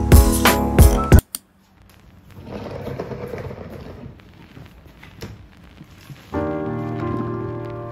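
Background music with a beat cuts off about a second in. Then come faint rustling and scraping as large white plastic storage boxes are handled and moved, with one sharp knock. Music starts again near the end.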